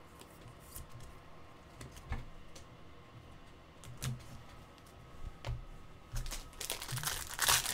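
Scattered light clicks and taps, then from about six seconds in, the crinkle of a foil trading-card pack being torn open and handled.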